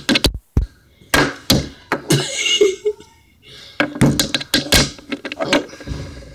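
Irregular knocks and thumps of a hand hitting a tabletop close to the phone: a few single taps in the first two seconds, then a quick cluster of them around four to five seconds in.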